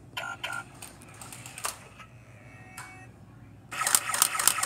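Toy laser-tag gun's electronic sound effects: a few short beeps and clicks near the start, then, about three and a half seconds in, a loud rapid run of sharp electronic clicks, about six a second, over a steady high tone.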